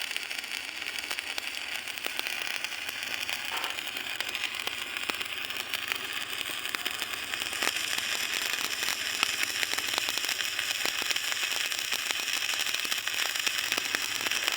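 Electric arc welding: the arc burns with a steady crackling hiss made of many rapid small pops, a little louder about halfway through.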